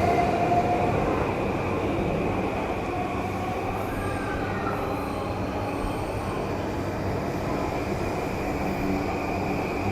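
Electric commuter train pulling out of the platform: wheels running on the rails with a steady rumble, and the traction motors' faint whine rising in pitch from about four seconds in. Wind is blowing on the microphone.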